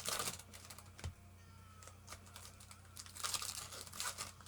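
Foil trading-card pack wrappers crinkling and tearing as packs are opened, in two spells: briefly at the start and again for about a second from three seconds in. A steady low hum lies underneath.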